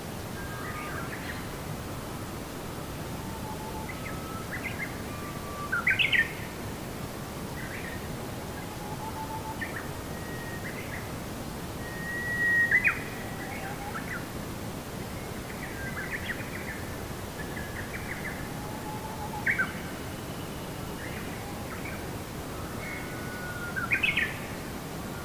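Birds singing: short whistled notes and chirps, with a louder chirp about every six seconds, over a steady background hiss.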